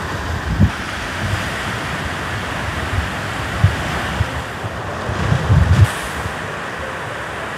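Steady wash of sea surf with wind buffeting the microphone in low rumbling gusts, strongest about five to six seconds in.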